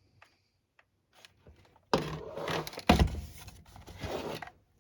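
Handling noise from a plastic table fan being picked up and turned over on a hard surface: a few faint clicks, then rustling and knocking with one loud thump about three seconds in.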